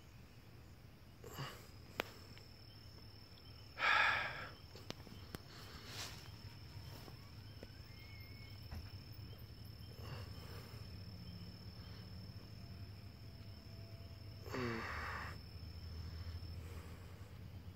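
Crickets trilling steadily as one high continuous tone that stops a little before the end, over a faint low hum. A sharp click comes about two seconds in, a brief louder sound about four seconds in, and another short sound with a falling pitch near fifteen seconds.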